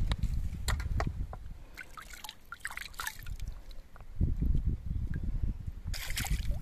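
Stream water splashing and dripping as hands rinse pieces of skinned rabbit meat in it, in scattered splashes at first, with a low rumble from about four seconds in and a burst of splashing near the end.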